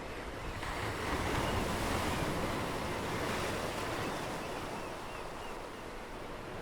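Sea surf washing with wind, a steady hiss that swells about a second in.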